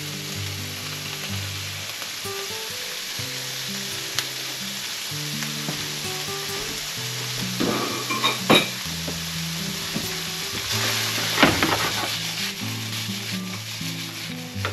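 Diced peppers, onions, ham and tomato sizzling steadily in olive oil in a frying pan, with a few short knocks and scrapes of the pan about eight and eleven seconds in. Near the end the pan is shaken on the burner.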